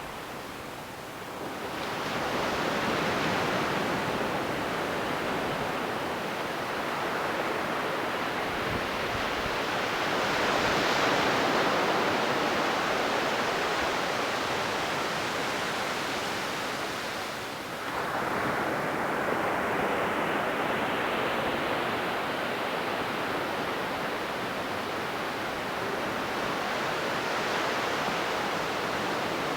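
Ocean waves breaking and washing up the shore in a steady hiss of surf. It swells louder as one wave breaks about two seconds in and another a little past halfway.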